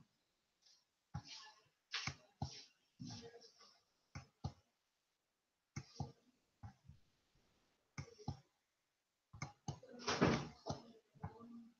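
Faint, scattered clicks and knocks: a string of short, sharp sounds with silence between them, and a longer, denser burst about ten seconds in.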